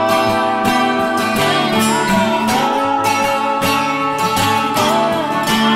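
Background music led by strummed acoustic guitar, with a steady rhythm.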